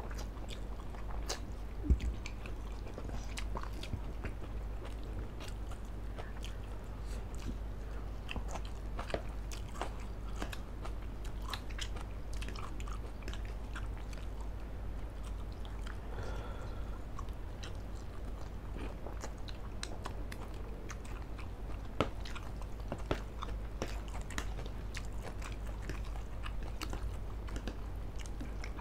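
Close-miked eating by two people: steady chewing of instant noodles and grilled chicken, with many small wet mouth clicks over a low steady hum. Two sharper clinks stand out, about two seconds in and again about three quarters of the way through, like a metal fork or spoon knocking the dish.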